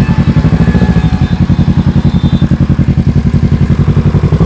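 Kawasaki motorcycle engine running at a steady speed, with a rapid, even exhaust pulse.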